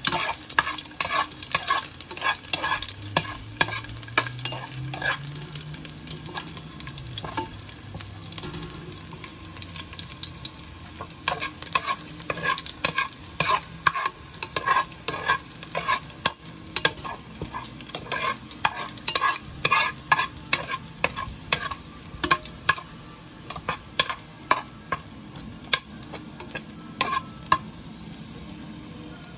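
Metal spoon stirring chopped garlic frying in oil in a pot, with repeated clicks and scrapes against the pot over a faint sizzle. The stirring eases off for a few seconds about a quarter of the way in, then picks up again.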